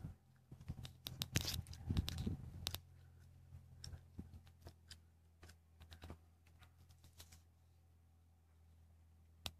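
Rustling and sharp clicks of the recording phone being handled for about the first three seconds, then a faint steady low hum with scattered small clicks.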